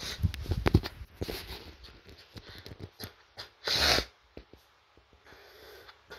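Rubbing and knocking noise from a handheld phone for the first second or so, then scattered clicks. About four seconds in comes one short, loud, breathy snort from a Shih Tzu puppy.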